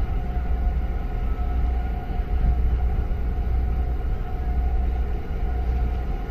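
Steady low rumble with a constant droning hum from a large container ship under way close by, its machinery running as it passes.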